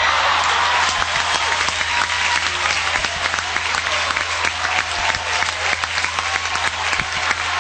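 Audience applauding: many people clapping in a dense, steady patter that starts just as the music stops.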